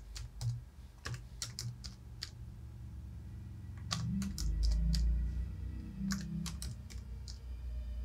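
Keys tapped one at a time on a Logitech computer keyboard's numeric keypad, in uneven clicks, entering figures into a calculator. A low rumble swells up about halfway through and fades a couple of seconds later.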